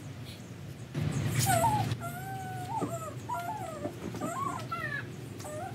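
An animal's high-pitched whining: a string of short, wavering whines, one after another. A brief rustle comes about a second in.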